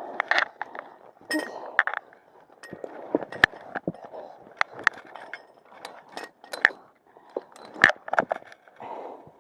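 Irregular sharp metallic clinks and taps, a few to several a second, from a climber's gear and metal hardware on a steep trail. Under them is a soft hiss that swells and fades, like hard breathing.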